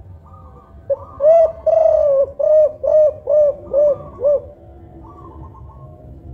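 Spotted dove (tekukur) cooing a song phrase of about eight coos. Two longer notes are followed by shorter, evenly spaced ones at about two a second, and the phrase ends about four and a half seconds in.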